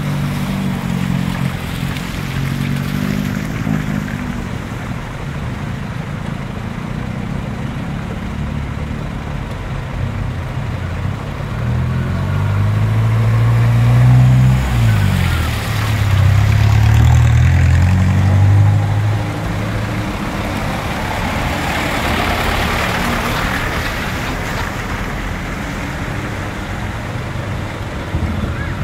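Diesel engines of light box trucks running as the trucks crawl one after another through deep flood water on the road. One truck's engine grows loud as it passes close, from about twelve to nineteen seconds in, its pitch dipping and rising again around fifteen seconds; a wash of water from the wheels is heard around fifteen and again from about twenty-one to twenty-four seconds.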